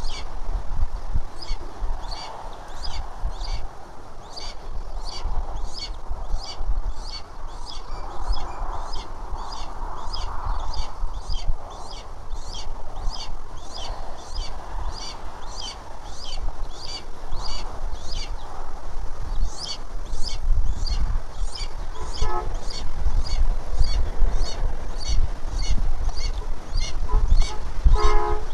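Wind rumbling on an outdoor nest-camera microphone, with a high call repeated steadily about three times a second. Two short bursts of rapid ticking come about two-thirds of the way through and just before the end.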